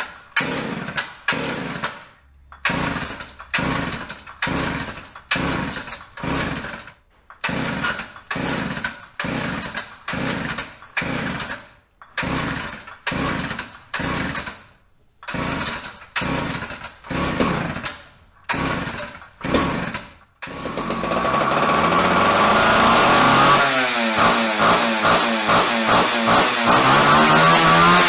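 Homelite Super XL Automatic two-stroke chainsaw being pull-started over and over, the recoil starter cranking the engine in short bursts about once a second. About twenty seconds in, the saw catches and keeps running. From a few seconds later its engine note rises and falls as it revs.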